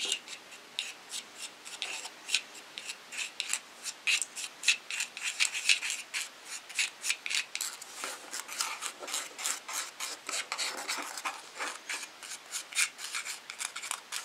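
A small utensil scraping and stirring Hydrostone powder with a few drops of water in a small tray, mixing it into a paste: a continuous run of short, quick scraping strokes, several a second.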